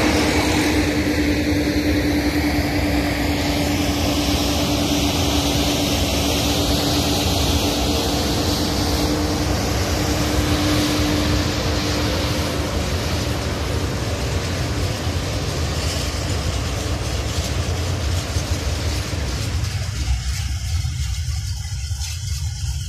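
Long freight train of loaded open wagons and a two-section electric locomotive passing close by: a steady rumble of wheels on rail, with a held tone that fades out about halfway through. Near the end the higher rail noise drops away and a low rumble remains as the train moves off.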